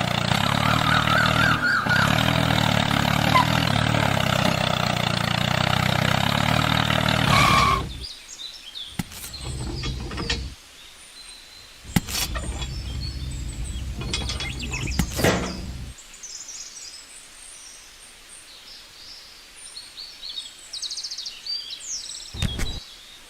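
A small motor running steadily, cutting off about eight seconds in, then running again for a few seconds, with a few sharp knocks. In the quieter stretches, birds chirp.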